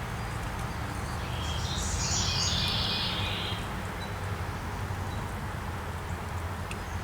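A bird singing for about two seconds, starting about a second in, over a steady low background noise.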